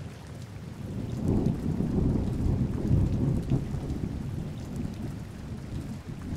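Steady rain falling, with a deep roll of thunder that swells about a second in and slowly dies away.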